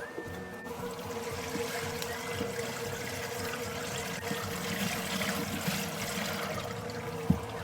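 Water trickling in a washing machine tub, with a steady hum under it and a single sharp click near the end.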